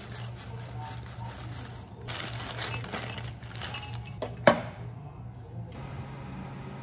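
Plastic zip-top bag crinkling as shredded cheese is shaken out of it onto gratin dishes, with one sharp click about four and a half seconds in. Near the end a steady hum as the oven runs.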